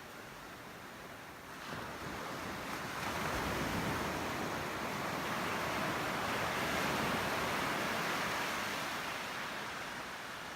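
Ocean surf: a wave builds about two seconds in, breaks and washes, then fades away near the end.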